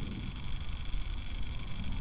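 Steady low rumble with a constant hiss, the background noise of an outdoor webcam microphone; no distinct owl call stands out.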